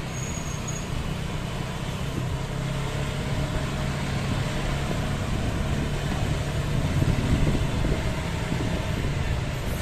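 Steady low road rumble while riding a bicycle: wind on the microphone mixed with passing motor traffic, with a faint engine hum throughout.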